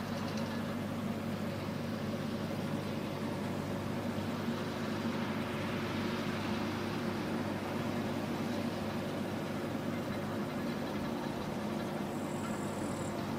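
Fendt 415 Vario tractor's six-cylinder diesel running at a steady note under load while it drives a Krone Comprima V 150 XC round baler picking up a lucerne swath.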